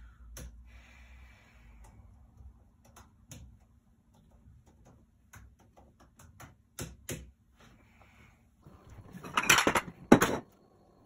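Soft, scattered clicks of laptop keyboard typing. Near the end comes a louder burst of clattering and rustling as things are handled on a kitchen counter.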